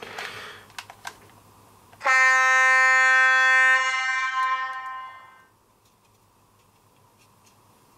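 Zimo MS450P22 sound decoder in an H0 model of a T466.0 diesel locomotive sounding the horn through its small speaker box: a few faint clicks, then about two seconds in one steady horn blast that starts suddenly, holds for about a second and a half and fades away over the next second or two.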